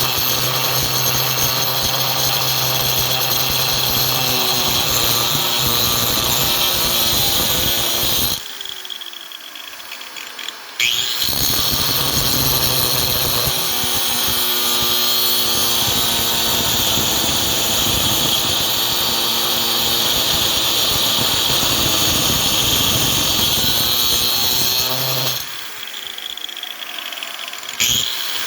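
Electric angle grinder running steadily as it cuts the motorized bicycle's steel exhaust pipe. It is switched off twice, about eight seconds in and again near the end, winding down with a falling pitch before starting up again.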